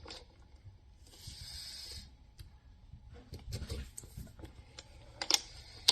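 Scattered clicks and knocks of a hand-geared hose swaging machine being handled and worked, with a few low thuds. A second-long hiss comes about a second in, and a single sharp click near the end is the loudest sound.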